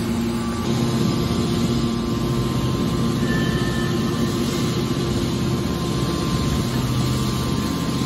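Hydraulic power unit of a scrap-metal baler shear running with a steady, even hum while the press lid is worked.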